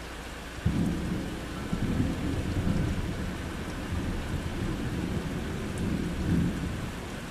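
Thunder breaking suddenly about a second in and rolling on as a deep rumble in several swells for about six seconds, fading near the end, over a steady hiss of rain.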